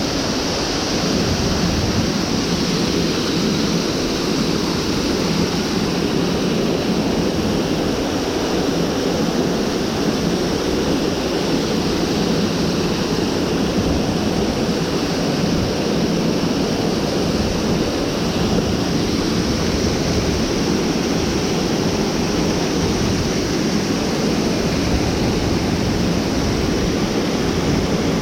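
Mountain stream water rushing, a steady unbroken noise.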